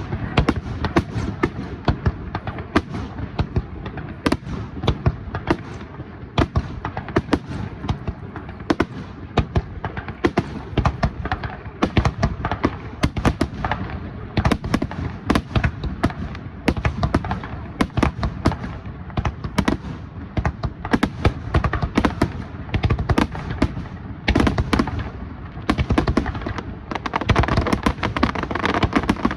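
Aerial fireworks shells fired in quick succession, a dense run of sharp bangs and booms several times a second, with no let-up.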